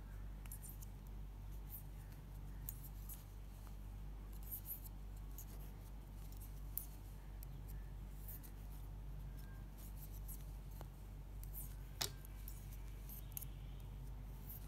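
Knitting needles clicking and scraping lightly and irregularly as stitches are worked, with one sharper click about twelve seconds in, over a steady low hum.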